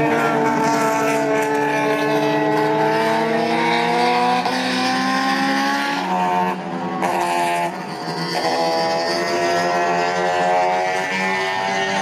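Classic car engine accelerating hard, its note rising steadily for about six seconds, then breaking off briefly about six and a half seconds in and again near eight seconds before running on at a steady pitch.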